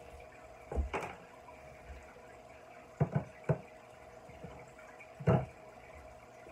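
Aquarium filter running with a steady hum and water trickling, broken by a few short knocks of hands working at the tank, about a second in, twice around three seconds in, and once past five seconds.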